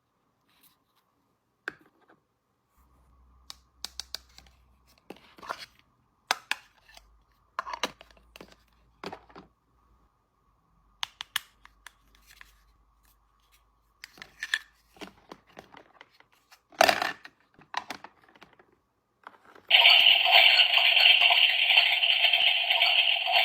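Packaging being torn and rustled while an unboxing goes on, in short separate bursts with small clicks, the loudest a little before the end. Music comes in loudly near the end.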